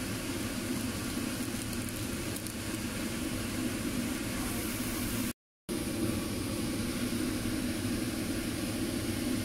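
Steady mechanical hum with a rushing noise, like a kitchen fan or appliance running, cutting out completely for a moment just past halfway.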